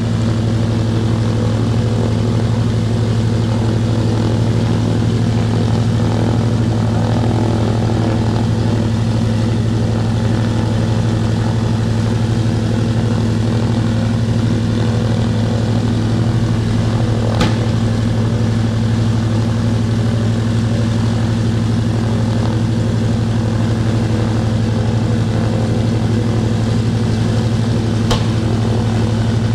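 Douglas Dakota's Pratt & Whitney R-1830 Twin Wasp radial engine running steadily just after start-up, a deep even drone with its propeller turning. Two short clicks come through, one about halfway and one near the end.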